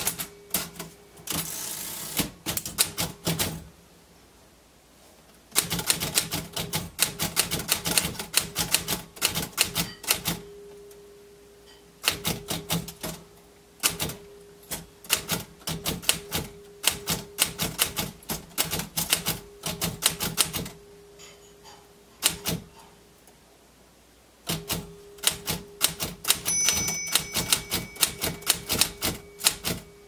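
Royal manual typewriter being typed on: rapid runs of sharp key and typebar strikes in bursts, broken by pauses of a second or two. Near the end a short bell ring sounds, the margin bell warning that the line is nearly full.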